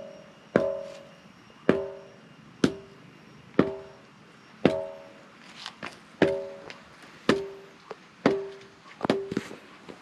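A large boulder known as a bell stone (đá chuông) struck with a short wooden stick about once a second. Each blow gives a sharp knock followed by a brief bell-like ring on two pitches that fades within about half a second.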